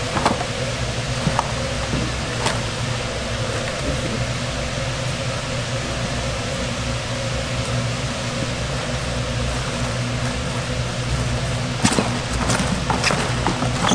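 Restaurant kitchen ambience: a steady ventilation fan with a low hum, and a few sharp clicks and clinks, several close together near the end.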